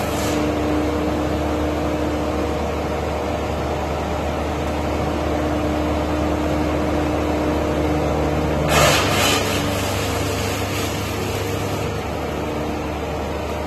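Diesel engine of a mobile wood chipper running steadily, with a short noisy burst about nine seconds in, after which the engine note changes slightly.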